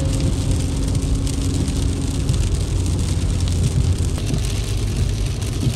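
Road noise inside a car driving on a rain-soaked motorway: a steady low rumble of tyres on wet asphalt, with a hiss of rain and spray on the windscreen. A steady low hum stops about two seconds in.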